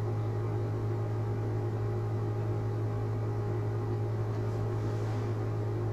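Steady low electrical hum with an even background hiss, unchanging throughout, with no distinct events.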